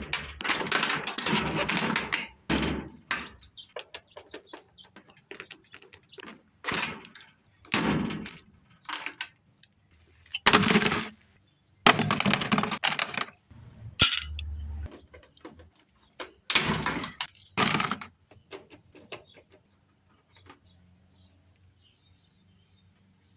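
Metal parts of a washing machine being handled and pried apart: irregular clanks, rattles and scrapes in short bursts that thin out to faint ticks over the last few seconds.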